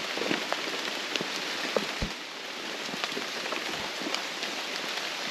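Steady rain falling on rainforest foliage, a constant hiss with scattered single drops ticking through it and one dull low thump about two seconds in.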